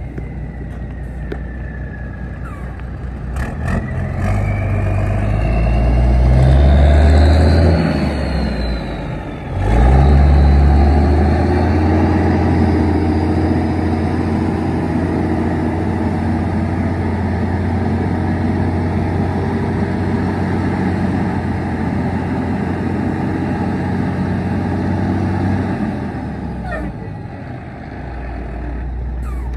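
1995 Mack CH613 tractor's diesel engine pulling a lowboy trailer. It revs up as the truck pulls away and drops out briefly at a gear change about ten seconds in. It then runs steadily under load and eases off near the end.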